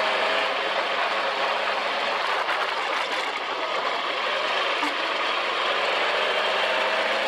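Dune buggy engine running steadily as it drives across sand dunes, under a constant rush of wind noise on the mounted camera's microphone.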